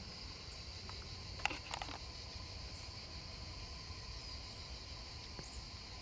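Faint outdoor ambience: a steady high insect drone over a low rumble, with a few brief clicks and rustles about a second and a half in.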